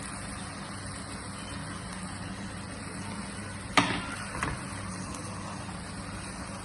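A steady low hum, with a sharp knock a little before four seconds in and a lighter one about half a second later, like a utensil striking the pan while the empanada filling cooks.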